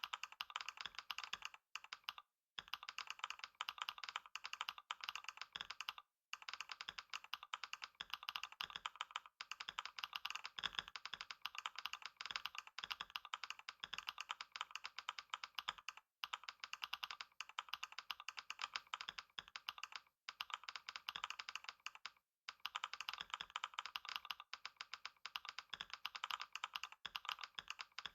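Fast, continuous typing on a computer keyboard: a rapid, unbroken run of key clicks with a few brief pauses.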